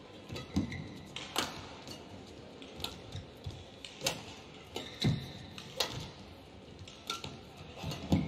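Badminton rally: sharp racket hits on the shuttlecock about every second or so, mixed with brief shoe squeaks on the court mat and low thuds of footwork. The heaviest thud comes near the end, as a player lunges low.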